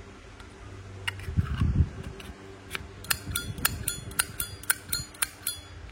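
Zippo lighter's metal case clicking: a few scattered sharp clicks, then a quick run of about five a second from about three seconds in. Its sound is called quite nice.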